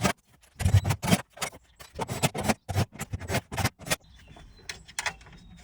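Hand tools clicking and knocking on metal as the bolts on the pyrofuse cover and 16-volt battery cable are nipped up: about a dozen sharp, irregular clicks over roughly four seconds, then only a faint low hum.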